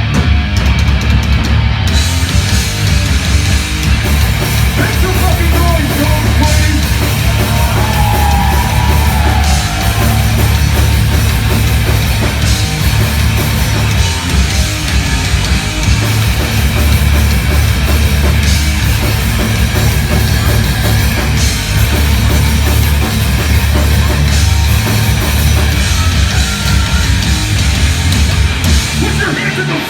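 Heavy metal band playing live at full volume, with drums and a heavy low end.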